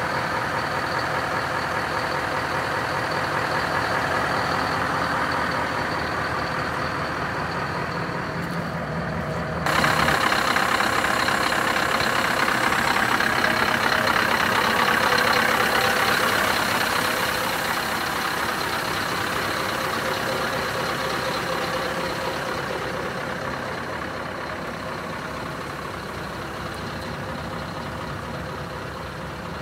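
Scania R500 truck's diesel engine idling steadily. About ten seconds in the sound turns suddenly louder and brighter, then slowly fades toward the end.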